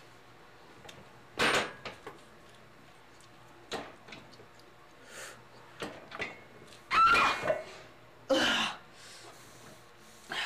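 Irregular knocks and creaks from a home weight bench's leg-extension attachment being worked, with the loudest knocks about seven and eight and a half seconds in, the first carrying a brief squeak. A faint low hum runs underneath.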